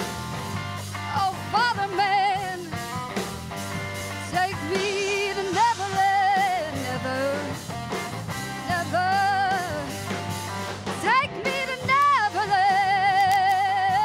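Live rock band: a woman singing long, wavering held notes with vibrato over electric bass guitar and band.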